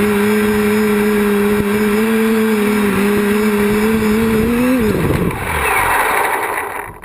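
Quadcopter's electric motors and propellers running with a steady hum, which rises briefly and then winds down quickly about five seconds in as the motors spin down. A rushing noise follows, then the sound cuts off abruptly near the end.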